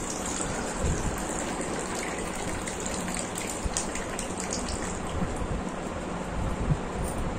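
Water poured in a thin stream from a stainless steel bowl into a steel tumbler, splashing steadily.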